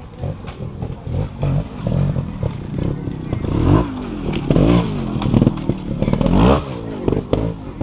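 Trials motorcycle engine blipped in short revs as the bike climbs over rocks, each rev rising and falling in pitch. It is loudest as the bike passes close, about four to six and a half seconds in.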